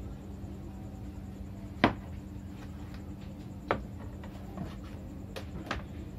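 Light knocks and taps of papaya halves and a kitchen knife being handled and set down on a plastic cutting board, lid and tabletop. The loudest knock comes a little under two seconds in, another just before four seconds, and softer taps near the end, over a steady low hum.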